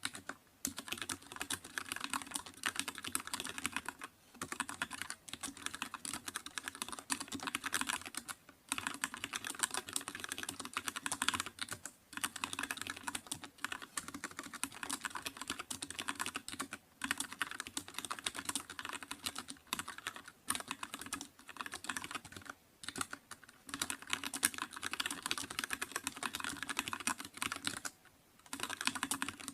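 Continuous fast typing on a computer keyboard: rapid key clicks in runs of a few seconds, broken by short pauses.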